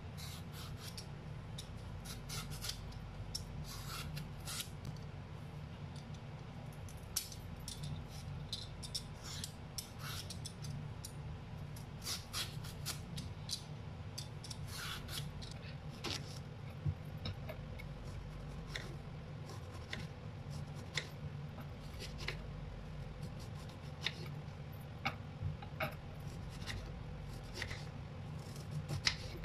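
Vegetable peeler scraping strips of skin off a raw green plantain in quick, irregular strokes. Near the end a knife slices the peeled plantain, with a few sharper clicks against the wooden cutting board, all over a steady low hum.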